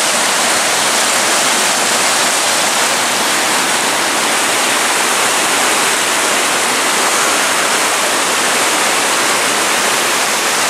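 Waterfall running: a steady, loud rush of falling water.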